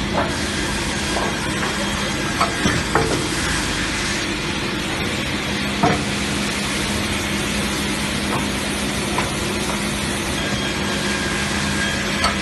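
Multi-rip edging saw running with a steady hum and a hissing noise, with a few sharp knocks, a cluster about two to three seconds in and one near six seconds.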